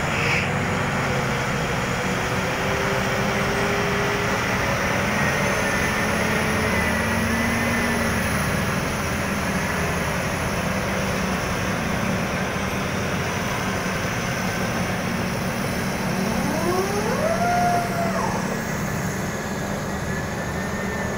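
A Caterpillar 785C haul truck's diesel engine running steadily as the truck drives past, over the drone of other heavy mining machinery. About three-quarters of the way through, a short whine rises in pitch, holds briefly and falls back.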